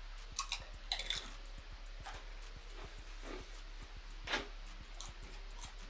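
A person crunching and chewing a tortilla chip: several crisp crunches in the first second or so, then quieter wet chewing and mouth sounds.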